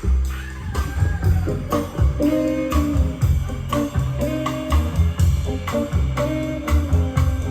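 Instrumental blues-jazz music with guitar, bass and drums, keeping a steady beat.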